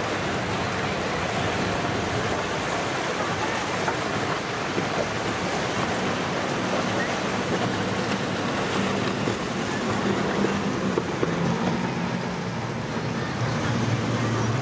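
Waves and surf washing steadily, with wind buffeting the microphone. From about two-thirds of the way in, a boat engine's low steady drone comes up and grows louder toward the end.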